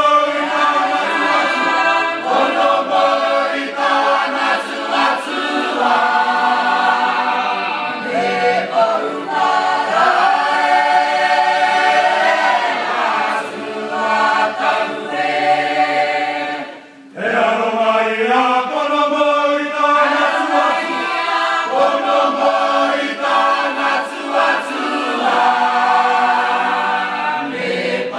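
A mixed group of voices singing a traditional Cook Islands hymn a cappella in long held chords, the harmony shifting every second or two. The singing breaks off briefly about seventeen seconds in, then carries on.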